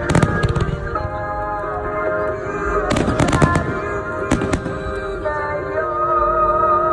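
Fireworks bursting in quick clusters of sharp bangs, right at the start, around three seconds in and again just after four seconds, over a pop song with a steady melody.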